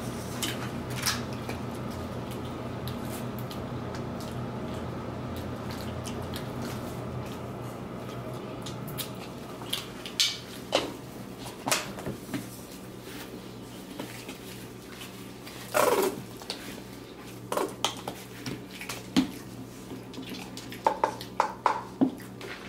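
Fork and hands clinking and scraping on a metal serving tray while eating burger and fries. The clicks and clatter come in scattered bursts, busiest in the second half. A low steady hum sits under the first several seconds and fades.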